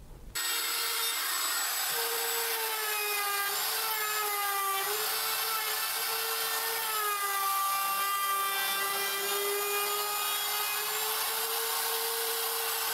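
Handheld electric router running steadily, its bit cutting along the wooden edge of a workbench top to trim it flush. The high motor whine sags a little in pitch now and then over a hiss of cutting.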